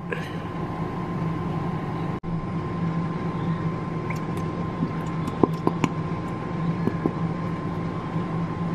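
Steady machine hum with a constant low drone and a faint thin tone above it, broken by a brief dropout about two seconds in; a few faint clicks sound around the middle.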